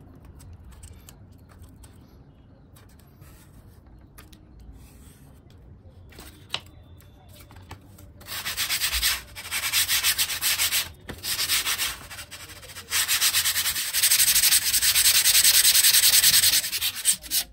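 Hand sanding of a thermocol (polystyrene foam) wing edge with a sheet of 180-grit sandpaper: quick back-and-forth scratchy strokes that start about eight seconds in and go on in several spells with short pauses. Before that, only faint handling sounds as a balsa strip is pressed into the foam.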